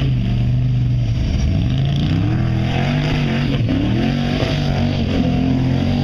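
Engine of a tube-frame off-road buggy revving up and dropping back several times as it crawls over a dirt mound and old tires.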